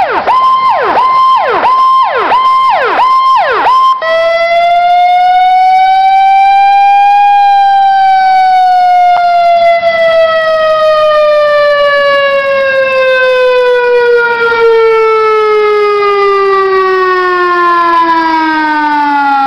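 Emergency vehicle siren, loud. It pulses in a fast yelp for about four seconds, then settles into one long wail that rises a little and slowly winds down in pitch.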